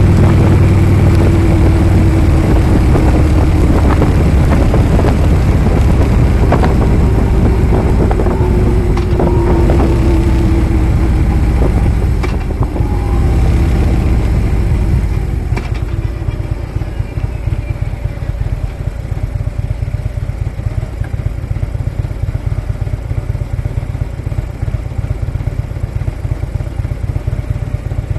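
Harley-Davidson motorcycle's V-twin engine running under way, then dropping to a quieter, evenly pulsing idle about halfway through.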